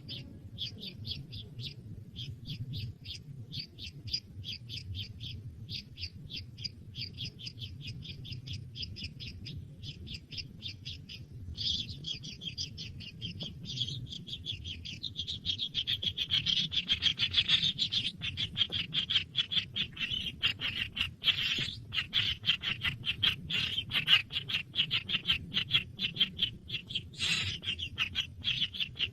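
Nestling birds calling: a steady train of short, high chirps, about two or three a second, that turns faster and louder about halfway through.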